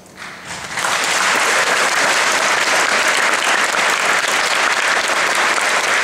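Audience applauding, swelling over the first second and then steady.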